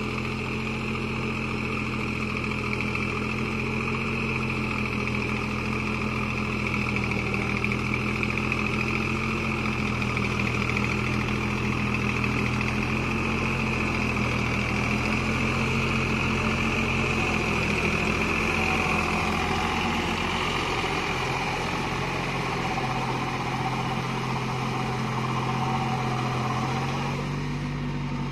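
Deutz-Fahr Agrolux 50 4WD tractor's diesel engine running steadily under load as it works through deep paddy-field mud with a rotavator, with a steady high whine over the engine note. The note shifts slightly about two-thirds of the way through.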